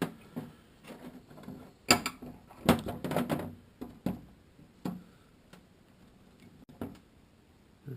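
Several sharp metallic knocks and clatters as transaxle parts are handled and set down, the loudest about two and three seconds in, then a few lighter taps.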